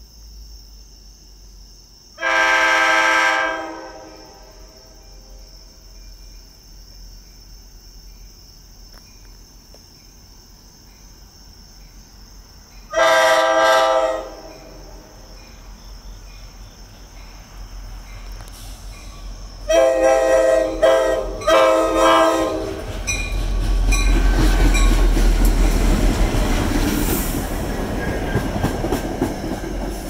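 F40 diesel locomotive's air horn sounding a chord: one blast about two seconds in, another near fourteen seconds, then a run of short toots around twenty seconds in. The train then passes close by, with a loud steady rumble of locomotive engine and wheels.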